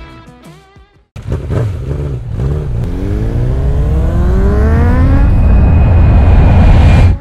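Motorcycle engine accelerating hard, its pitch rising steadily, over a heavy rumble of wind and road noise. It starts suddenly about a second in, grows louder, and cuts off abruptly.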